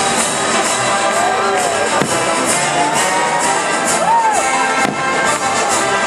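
Fireworks-show music playing over a loudspeaker system, with crowd noise beneath and a couple of faint bangs, about two and five seconds in.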